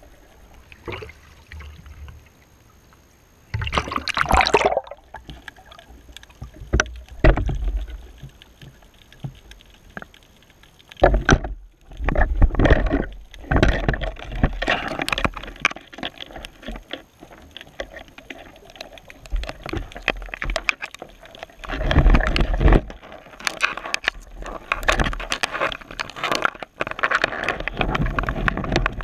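Wave surge heard underwater over a shallow rocky seabed at a surf break: irregular churning, gurgling and crackling water. After a few quieter seconds, loud surges with a deep rumble come every several seconds as waves pass overhead.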